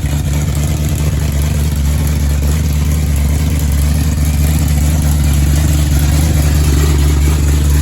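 1972 Plymouth Road Runner's 383 big-block V8 running at a steady idle while warming up, its exhaust going through Doug's headers that are only temporarily bolted at the collectors. It gets slightly louder about five seconds in.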